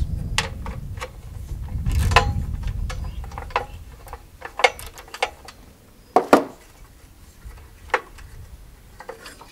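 Scattered ratchet clicks and metal clinks as the bolts are backed out of a Honda GX engine's recoil starter housing with a 10 mm socket, with a louder metallic clank about six seconds in. A low rumble fades out over the first few seconds.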